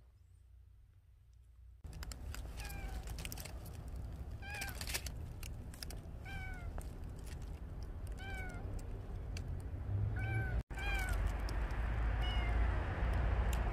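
Young kitten meowing alone in the cold, a lone kitten's distress crying. It gives short arched cries about every two seconds, starting about two seconds in. Scattered crackling clicks and a low rumble run underneath.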